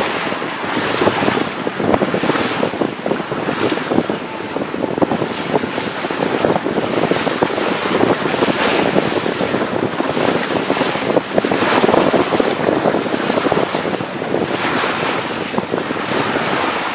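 Wind buffeting the microphone over water rushing and splashing along the hull of a Faurby 36 sailing yacht beating close-hauled through chop. The sound surges every second or two as the bow meets the waves and throws spray.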